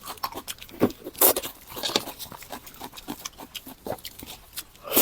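Close-miked eating: chewing and mouth sounds of a person eating, in irregular bursts, the loudest just over a second in.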